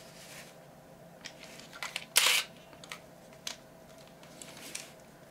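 Ricoh XR-M 35mm film SLR firing its shutter and mirror once, a single sharp click a little over two seconds in, among a few faint clicks from handling the camera and lens. The owner suspects the shutter is sticking.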